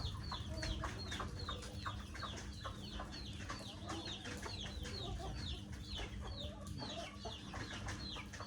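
Chickens clucking and peeping, with many short, high, falling peeps several times a second and some lower clucks, over a steady low rumble.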